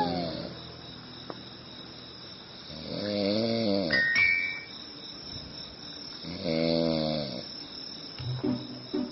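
A man snoring in his sleep: two long snores about three seconds apart, each rising then falling in pitch, with another starting near the end.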